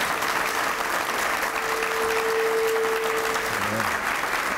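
Audience applauding steadily, with a single steady tone held for about two seconds in the middle.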